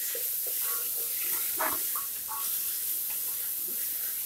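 Diced potatoes and green beans sizzling in hot oil in a pressure cooker while a spoon stirs them, with scattered short scrapes and clinks of the spoon against the metal pot.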